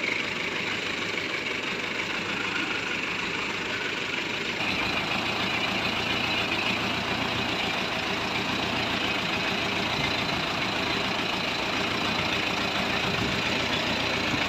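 Truck engine running steadily as the vehicle is manoeuvred, its drone growing heavier and slightly louder about four and a half seconds in.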